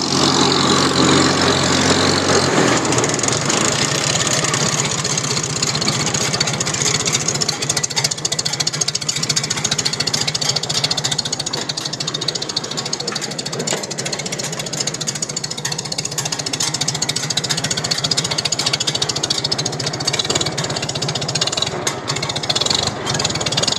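Tractor engine running with the PTO-driven IH No. 46 baler, a steady fine mechanical clatter; the low hum drops about two and a half seconds in as the machine is being shut down.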